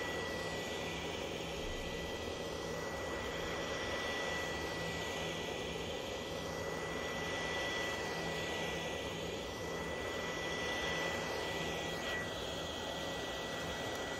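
Handheld heat gun blowing steadily, its fan making a rushing hiss with a thin high whine and a low hum, as it warms the phone's old adhesive to soften it for re-gluing the back glass.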